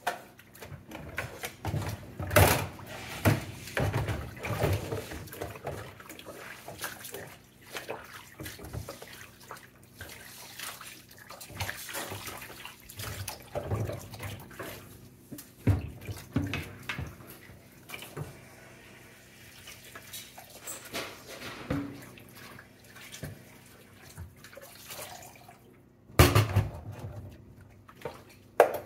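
Kitchen work at a sink: running or splashing water with irregular clinks and knocks of utensils and dishes, a few of them louder.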